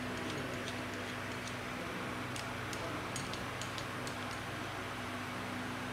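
A dozen or so light, irregular clicks and ticks, most of them between about two and four and a half seconds in, over a steady low hum.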